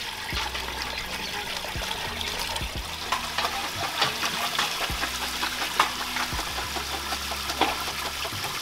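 Palm nut extract poured from aluminium bowls through a metal strainer into a cooking pot, a steady liquid pour with scattered small metallic clinks.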